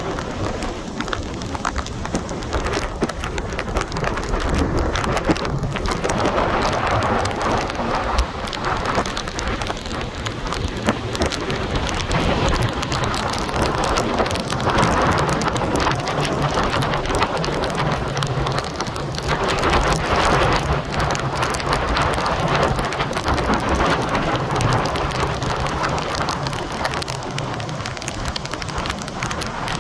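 Hurricane-driven surf breaking and washing up a beach, a dense rushing noise that swells every several seconds as waves break, over a low rumble that may be wind on the microphone.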